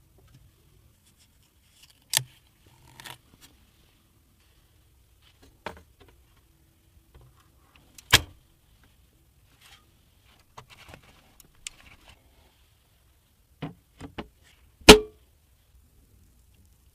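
Sparse, sharp clicks and knocks of computer hardware being handled and fitted during a PC build, about eight in all. The loudest comes near the end with a brief ring.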